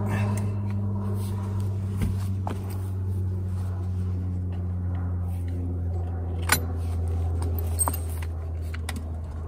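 A steady low hum, with a few sharp clicks and knocks as an old lead-acid deep-cycle battery is handled on its rusty slide-out metal tray.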